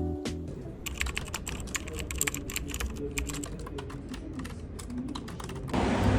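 Typing on a computer keyboard: a quick, uneven run of key clicks over faint background music. Near the end it cuts off abruptly into a steady rushing noise.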